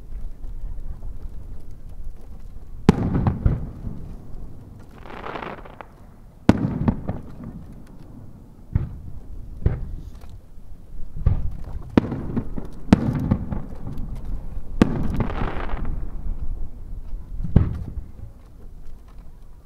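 Aerial firework shells bursting: a series of about nine sharp booms, some in quick succession, each trailing off in a low rolling echo. Twice there is a brief rushing hiss between the booms.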